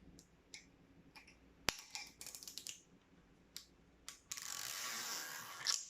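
Plastic wrap being picked at and peeled off a metal perfume tin: scattered small clicks and taps with one sharp click about two seconds in, then about a second and a half of loud crinkling near the end.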